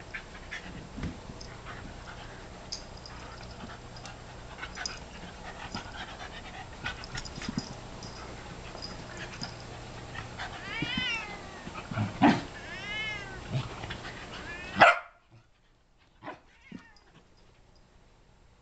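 Sheltie and cat play-fighting on carpet, with scuffling and small knocks, and two drawn-out meows that rise and fall, a couple of seconds apart. Near the end comes a sharp knock, the loudest sound, after which it goes much quieter.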